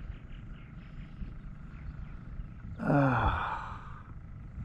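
A man's wordless groan of frustration, one sigh falling in pitch about three seconds in, at a big fish that has just broken his line. Faint rhythmic chirping, about four a second, runs underneath in the first half.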